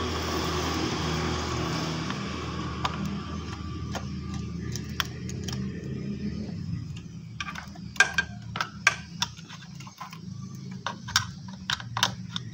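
Screwdriver and bolts clicking against metal as the electric bike controller's mounting bolts are undone, with a run of sharp clicks in the second half. Under the first half, a steady engine hum from a motor vehicle fades out.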